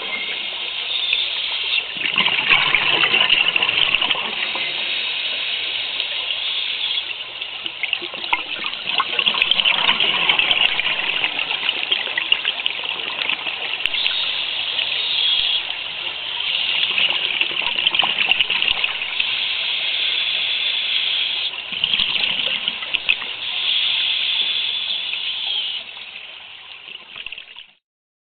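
Scuba regulator breathing and bubbling exhaust heard underwater through the camera housing: a hiss and bubble rush that swells and eases every few seconds with the breaths. It cuts off suddenly near the end.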